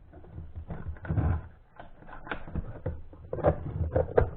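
Irregular clicks and light knocks from hands handling the metal detector's parts and wires as it is put back together.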